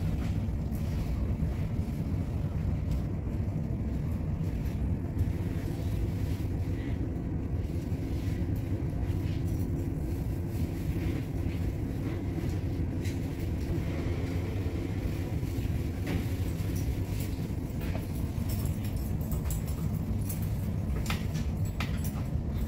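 Steady low rumble inside a light-rail car's cabin, with a few faint clicks near the end.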